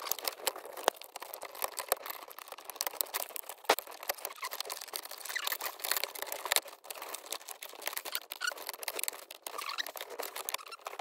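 Hard plastic centre-console trim and cup holder tray being handled and pressed into place, a busy run of small clicks, taps and scraping rubs, with one sharper knock a little under four seconds in.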